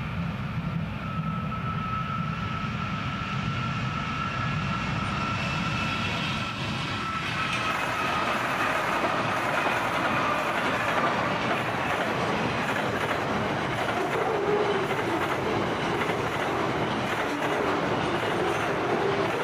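Three NR-class GE diesel-electric locomotives running past with a low engine drone and a steady high whine, followed from about seven seconds in by a long train of loaded steel wagons rolling by, wheels rumbling on the rails, with brief wheel squeal later on.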